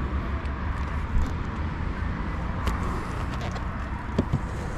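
Wind buffeting the microphone: an uneven low rumble that does not let up, with a few faint clicks over it.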